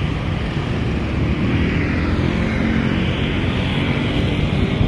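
Steady rumble of distant engine noise, with wind buffeting the microphone.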